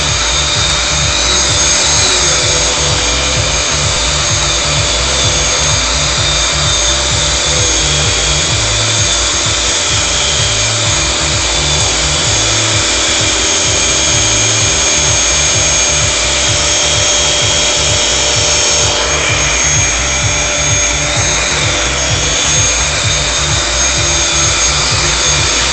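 Dyson DC21 Motorhead cylinder vacuum cleaner running on carpet: a steady motor whine over the rumble of the brush bar, the tone shifting slightly about two-thirds of the way through as the floor head is moved.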